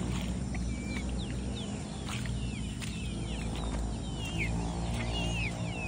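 Birds chirping: a string of short, high, falling chirps, several a second, over a steady low hum.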